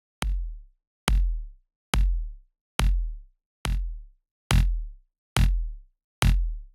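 Layered electronic kick drum, a Big Kick plugin kick with a snare-loop layer and a second kick sample, hit eight times at an even pace a little under a second apart. Each hit is a sharp click over a deep body that drops in pitch and fades within about half a second.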